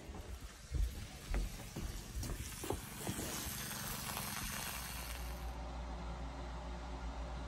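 Water running through a well water whole-house filter and out its drain line during a test cycle. A few bumps and a hiss of water come in the first half, then a steady low hum of flow.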